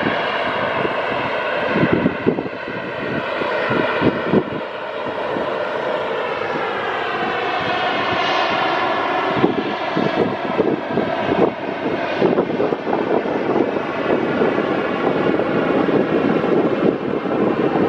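Boeing 737-800's CFM56-7B jet engines running with a whine of many stacked tones that dip and rise in pitch partway through, over a low, uneven rumble like wind on the microphone.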